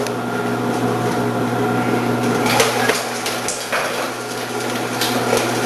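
Omcan HLC 300 continuous-feed vegetable slicer running with a steady motor hum as cucumbers are fed down the chute and cut by its 2 mm slicing disc. A few sharp knocks from the produce and plunger come about halfway through.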